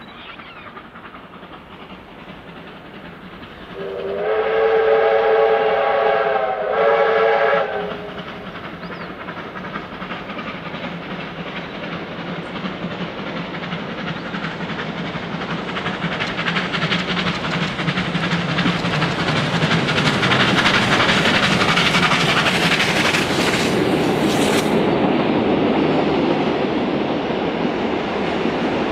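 Steam locomotive whistle blown twice, a long blast then a short one, as a double-headed steam train (R class Hudson R761 and K class Consolidation K153) approaches. The locomotives' exhaust and running noise then grow louder as they pass close by, and the wooden carriages roll through behind.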